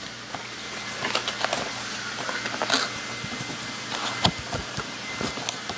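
Paperboard food carton being torn open by hand: irregular rustles, crinkles and clicks of the cardboard flap, with one sharper snap about four seconds in.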